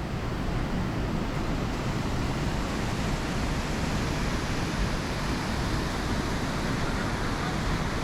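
Waterfall: a steady, loud rush of falling water, with a deep rumble underneath.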